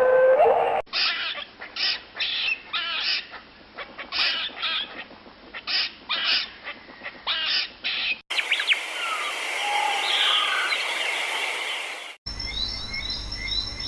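Birds calling in several short recordings cut one after another: a run of repeated short calls, then different calls over a steady hiss about eight seconds in, then fast rhythmic chirping near the end.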